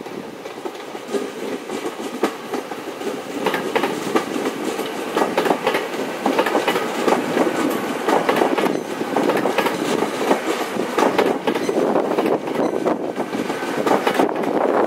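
Great Western Railway Hitachi intercity train passing at close range, its wheels clacking over the track, getting louder about four seconds in as the carriages go by.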